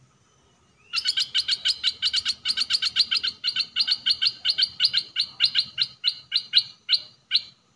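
Caged decoy merbah lekir bulbul singing a long chattering run of sharp, rapid notes, about five a second, that slows near the end.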